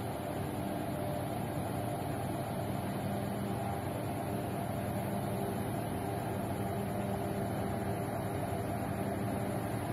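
A large container ship's engines and machinery humming as it passes close by. It is a steady low drone with a few held tones in it.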